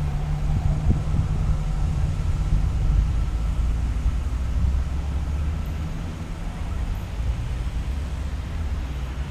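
Siemens Desiro (class MQ) diesel multiple unit pulling away from the station: a steady low engine drone that slowly fades as the train draws off.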